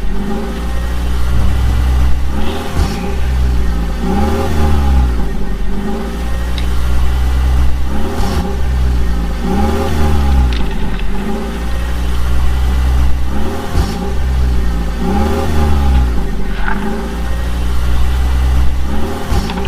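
Vehicle engine revving up and down in a pattern that repeats about every two seconds over a steady low rumble.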